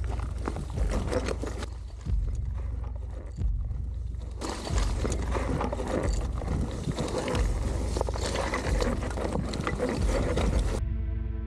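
A Zerode Taniwha enduro mountain bike riding down loose rocky scree, heard from a chest-mounted camera: tyres rolling over stones with constant knocks and rattles, over a low rumble of wind and movement on the microphone. Near the end the ride sound cuts off suddenly and music with steady held notes begins.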